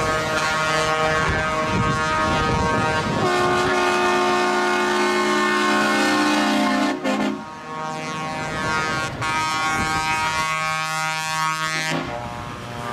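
Truck air horns blowing long sustained blasts as trucks drive past, several horns overlapping. A loud multi-tone horn chord sounds from about three seconds in and cuts off sharply about seven seconds in, and other horn tones carry on after it.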